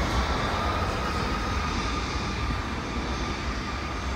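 Steady rumble of road traffic on a busy highway, with a city bus driving past close by. A steady high whine joins in after about a second and a half.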